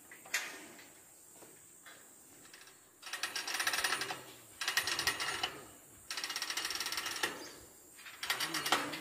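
Ratchet of a hand-operated lever hoist being cranked in four bursts of fast, even clicking, each about a second long, after a single sharp click less than a second in.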